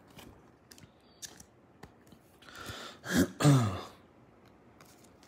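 A man clearing his throat about three seconds in: a breath, then two short falling grunts. A few faint clicks before it.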